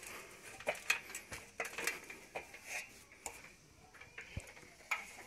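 Aluminium ladder clinking and knocking as a person climbs it: a string of irregular light metallic clicks and knocks.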